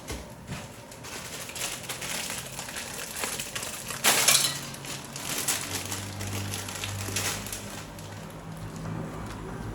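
Dry noodles crackling and packaging crinkling as they go into a pot of boiling water, with one louder crunch about four seconds in. A low hum comes in about six seconds in.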